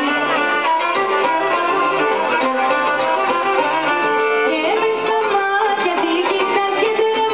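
Live Greek folk band playing: a violin leads the melody with sliding notes over guitar accompaniment, steady and continuous.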